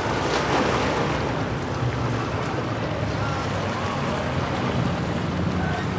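Wind buffeting the microphone by the water, over a steady low hum.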